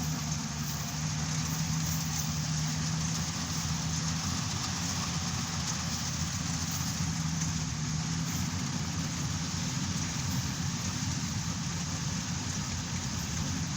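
Yanmar YH700 combine harvester running steadily, its engine and machinery making a continuous drone with a steady low hum.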